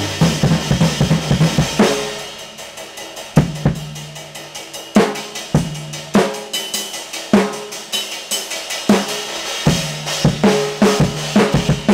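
Drum kit solo: fast, loud tom and snare fills with bass drum and ringing toms, easing about two seconds in to a softer run of quick light strokes broken by occasional loud accents, then building back into loud tom fills and cymbal hits toward the end.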